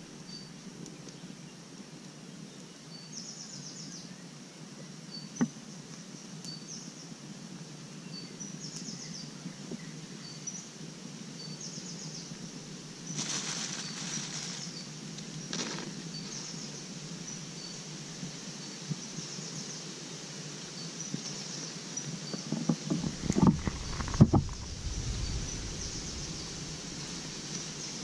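Insects chirping in short, repeated high trills over steady outdoor background noise, with a couple of brief rustles about halfway and a few low bumps near the end.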